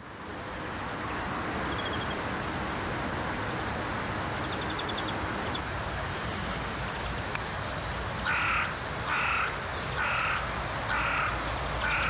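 Crow cawing, five harsh caws in an even series starting about two-thirds of the way in. Behind it is a steady rushing roar of distant motorway traffic.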